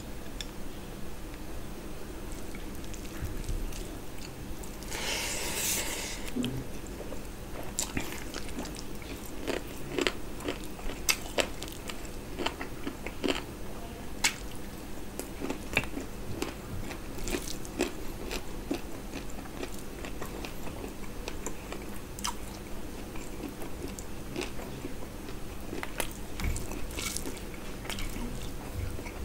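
Close-up eating sounds of mutton curry and rice eaten by hand: chewing and wet mouth sounds with many short clicks, and fingers squishing curry into the rice. A louder burst of noise comes about five seconds in.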